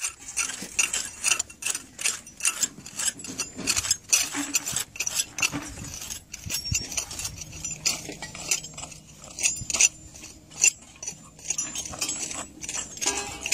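Metal trowels and hand picks scraping and clinking against stony soil: irregular sharp taps, several a second.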